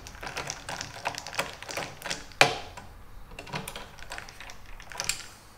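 Hand screwdriver tightening down the adjuster screws on a Lee bench plate's locking plates, which clamp the press in place: a run of irregular small clicks and taps, with one louder knock about two and a half seconds in.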